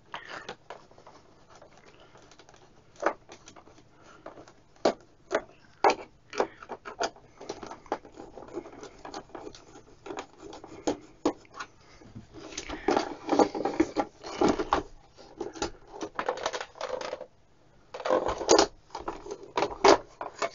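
Screwdriver turning the case screws out of a Philips PM 2521 bench multimeter, with scattered clicks and scratchy scrapes against the plastic housing. Longer bouts of scraping and rubbing come about two-thirds of the way through and again near the end, as the plastic cover is worked loose.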